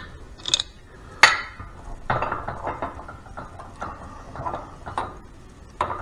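Metal clinks and knocks from a Harley five-speed transmission drive gear and its shaft being handled on an arbor press fixture: two sharp clicks about half a second and just over a second in, then a run of lighter clinks and rattles.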